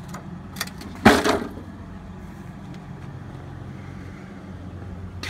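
Craftsman push mower set back down onto its wheels on concrete: one loud thud with a short rattle about a second in, after a couple of light knocks, over a steady low hum.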